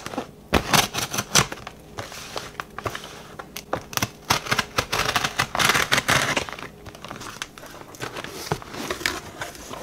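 Cardboard parcel being opened by hand: a snap-off utility knife scoring the packing tape, then tape tearing and cardboard scraping and crinkling. It comes as a string of short, sharp scrapes and clicks, densest about halfway through.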